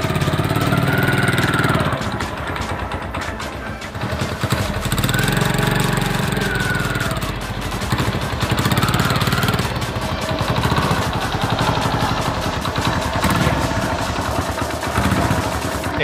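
Small motorcycle engine running close by, its pitch rising and falling several times as the throttle is worked to roll the front wheel over a keypad phone.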